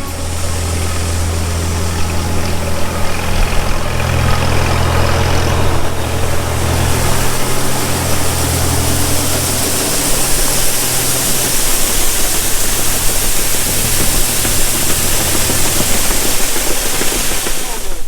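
Tractor engine running steadily: a low, even hum under a strong hiss. The hum eases off in the second half.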